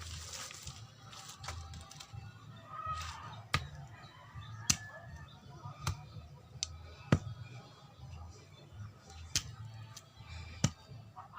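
A series of sharp, separate clicks or knocks, roughly one a second and uneven in spacing, over faint background music.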